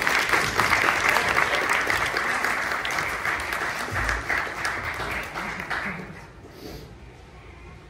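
Audience applauding after a choral song, dense clapping that thins out and stops about six seconds in.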